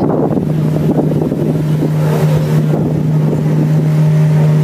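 Sassagoula River ferry boat's engine running steadily underway: a low steady drone whose hum grows fuller and clearer about two seconds in. Wind buffets the microphone.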